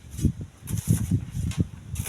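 Strong wind buffeting the microphone in irregular low rumbling gusts, with brief hissy rustles between them.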